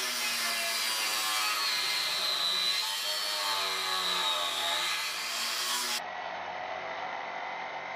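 Angle grinder with a cutoff wheel cutting through steel channel, a steady grinding with a whine whose pitch sags and recovers as the wheel is pushed into the cut. About six seconds in the sound changes to a duller, more even grind.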